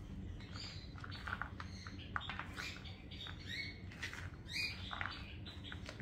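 Hands squishing and tossing a moist mix of grated carrot, soaked flattened rice and chickpeas on a plastic plate: soft, irregular patter and crackle, with a few short high squeaks around the middle.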